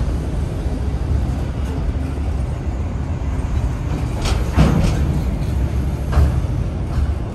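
A heavy vehicle running with a steady low rumble, with a few sharp knocks, two close together about four and a half seconds in and another about six seconds in.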